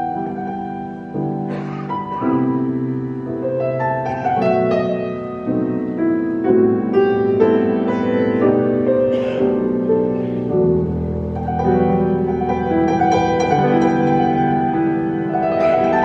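Solo grand piano improvisation: chords under a melody, with notes held and overlapping. A deep bass note enters about two-thirds of the way through.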